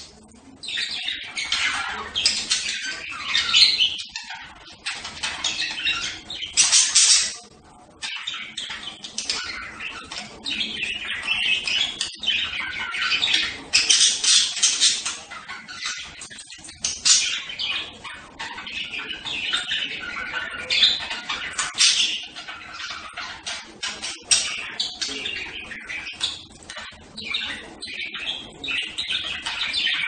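Budgerigars chattering: a dense, unbroken run of warbles, chirps and squawks, with louder bursts every few seconds.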